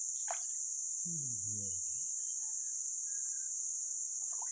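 Steady high-pitched drone of insects, with a single click near the start and a brief low voice sound from a man, falling in pitch, about a second in.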